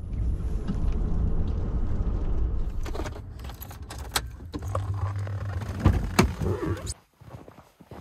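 Ford F-150 pickup's low, steady driving rumble heard inside the cab, with a few sharp clicks and rattles from around the steering wheel and dash. The rumble cuts off abruptly about seven seconds in.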